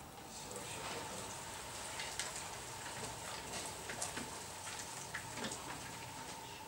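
Front door lock and door being handled: faint scattered clicks and light knocks over a steady hiss as the lock is picked and the door is pushed open.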